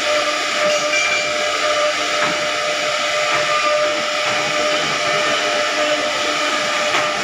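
CNC wood router running: a steady machine whine with a wide hiss over it, holding the same pitch throughout.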